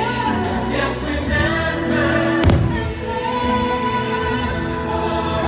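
Fireworks show soundtrack of music with a choir singing, played over loudspeakers, with one sharp firework bang about halfway through.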